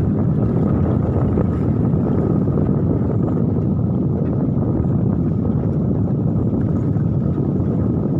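Steady low drone of an engine running without change, with a faint high tone held above it.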